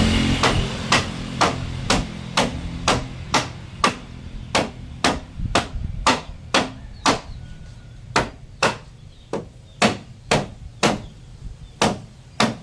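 Hammer blows on wood at a steady pace, about two a second, as a door panel is knocked into place.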